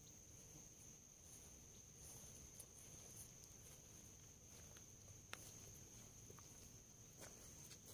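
Near silence: faint steady high-pitched chirring of insects, with a few faint clicks about five and seven seconds in.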